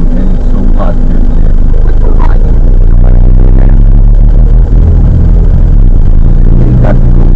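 Vehicle engine running at low speed in town traffic, heard from inside a car as a steady low drone that grows a little stronger about halfway through. A few brief higher sounds come over the top.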